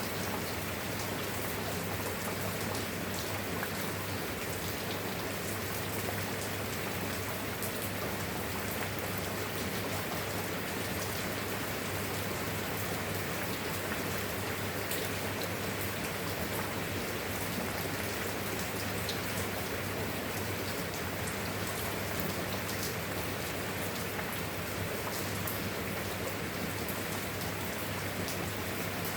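Steady rain falling, an even hiss with individual drops ticking through it, holding a constant level throughout.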